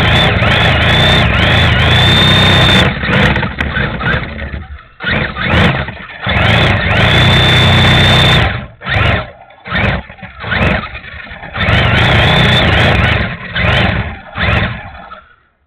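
RC drift car's motor and drivetrain, heard close up from a camera mounted on the car, whining up and down in pitch with each throttle blip. Over the second half it comes in short on-off bursts of throttle, then fades out near the end.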